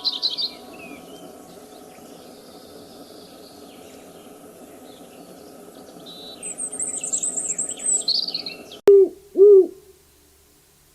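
Small birds chirping in short high bursts over a steady background hiss. A cut near the end brings two loud, low hoots of an owl, about half a second apart.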